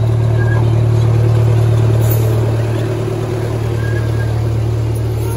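Engine of a C.P. Huntington miniature park-train locomotive, a steady low drone as it runs past at close range. It is loudest in the first couple of seconds as the locomotive goes by, then eases slightly as the passenger cars follow.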